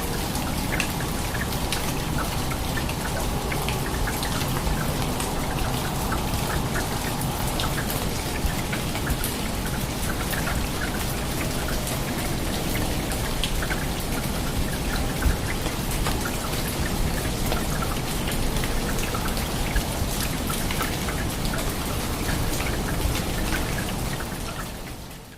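Heavy rain falling steadily, a dense patter of drops striking surfaces. It fades out abruptly at the very end.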